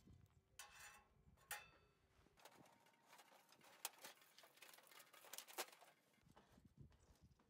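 Faint metal clinks and scrapes as a stainless-steel chimney pipe is set onto and worked down over a rocket stove's flue collar, with a couple of brief ringing knocks in the first two seconds and a run of small clicks and rattles after.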